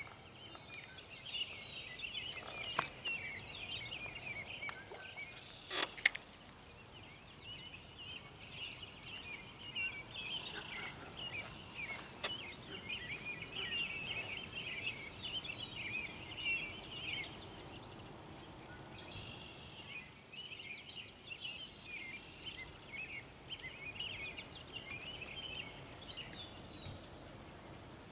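Many birds chattering and calling in a steady chorus of short, irregular chirps. A sharp click about six seconds in, the loudest sound, and another around twelve seconds.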